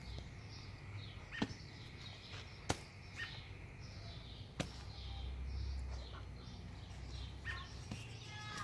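A bird chirping: a run of short, high calls sliding downward, repeated again and again, with a few sharp clicks and a low rumble mixed in.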